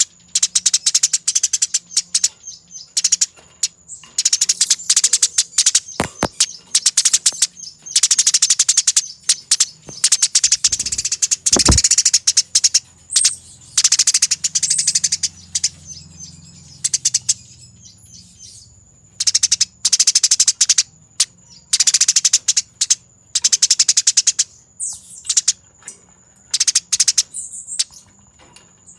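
Eurasian tree sparrow in fighting mode, giving fast, dense bursts of shrill chattering, each about a second long, again and again with short gaps. A thin steady high tone runs underneath, and two brief low thumps come about halfway through.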